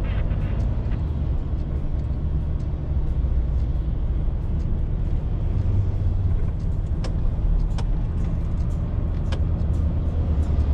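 DAF XF 530 truck's diesel engine and road noise running as a steady low drone heard from inside the cab, with a few short sharp clicks in the second half.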